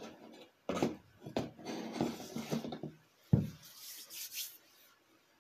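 Hands handling small metal engine parts on a cardboard box, with irregular rubbing and rustling and one sharp knock about three seconds in as a part is set down, followed by a short rustle.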